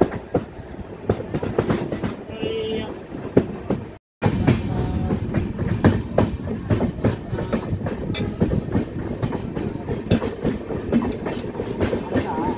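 Train running along the track, its wheels clattering over rail joints in a dense, irregular run of clicks over a steady rumble; the sound cuts out completely for a moment about four seconds in.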